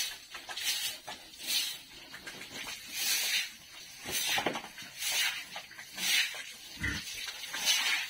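Pigs huffing and snuffling close by in short breathy bursts, about one a second, with a brief low grunt or thud near the end.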